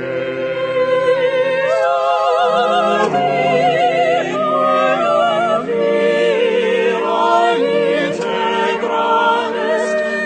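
Classical-style singing with a wide, even vibrato over sustained instrumental accompaniment.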